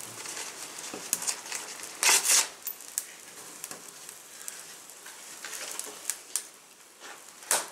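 Small kindling fire just catching, crackling and popping in sharp irregular clicks, with dry tinder rustling and crinkling as it is handled and pushed into the flames; a louder rustle comes about two seconds in and again near the end.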